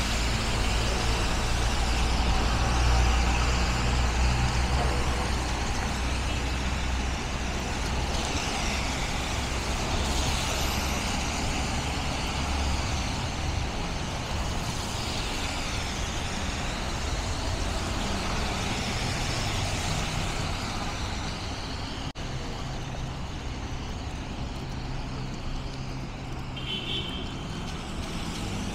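City street traffic: a steady rumble of passing cars and heavy vehicles under a constant hiss, with a large engine rumbling loudest over roughly the first ten seconds. A short high squeak comes near the end.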